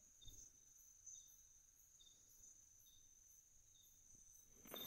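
Near silence: faint room tone with a steady high whine and faint short high chirps about once a second, like a distant insect, and a brief soft noise near the end.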